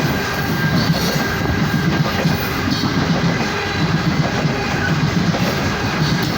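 Loaded coal train rolling past, its car wheels running over the rails with a steady, loud clatter.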